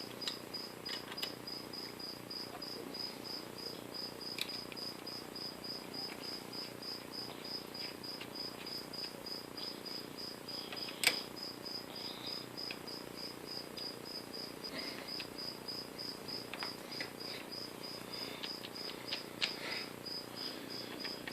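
A cricket chirping steadily, about three short high chirps a second, with scattered light clicks of parts being handled and one sharper click about halfway.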